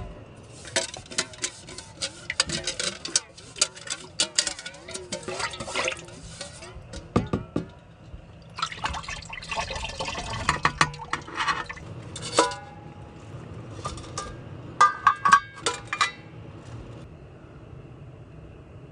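Water pouring and splashing in bursts, with many sharp clinks and knocks of things being handled.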